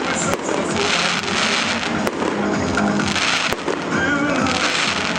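Fireworks display: dense crackling with sharp bangs now and then.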